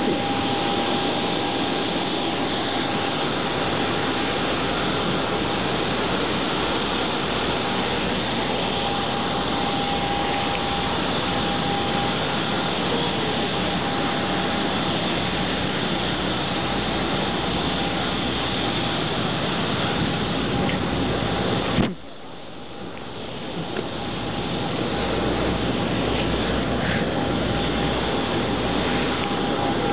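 Steady rushing noise of aircraft on an airport apron, with a constant high whine running through it. The noise drops abruptly about two-thirds of the way through and swells back up over the next few seconds.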